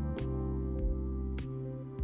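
Background music: soft, mellow chords with a light percussive beat.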